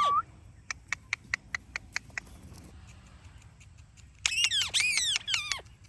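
Indian ringneck parrot making a quick series of short clicking chirps, then, about four seconds in, a loud burst of several harsh squawking calls.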